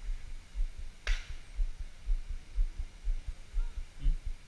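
Low, dull thumps on a body-worn action camera's microphone, evenly paced at about two a second, with one short sharp swish about a second in.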